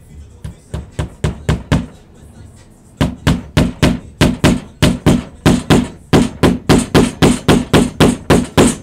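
Claw hammer striking in quick repeated blows, about three to four a second. There is a short run of lighter taps, a pause of about a second, then a longer run of harder, evenly spaced blows.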